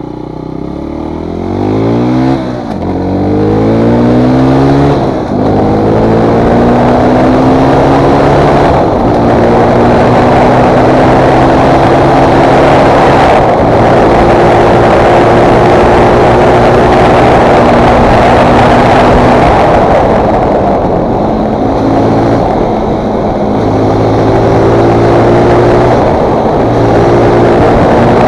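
2019 Fantic Performance 125 motard's single-cylinder four-stroke engine accelerating hard through the gears, its pitch climbing and breaking at each shift over the first few seconds. It then runs at fairly steady revs with a few brief throttle lifts, under loud wind rush.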